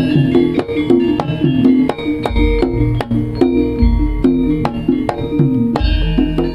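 Jaranan gamelan music played live: a quick repeating melody of struck metal notes over sharp kendang drum strokes, with deep gong-like booms a few times.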